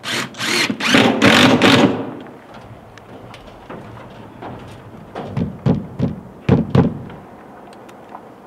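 Knocks and thuds of hand work on a window frame: a quick run of four or five loud knocks in the first two seconds, then a few softer thuds a few seconds later.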